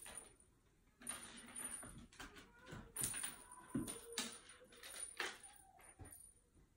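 A cat playing with its wand toy on wooden floorboards: irregular scuffles, taps and light clicking and rattling from about a second in, dying away near the end.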